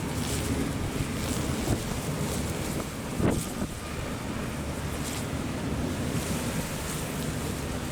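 Strong wind buffeting the microphone over the steady wash of rough sea waves, with a louder rush about three seconds in.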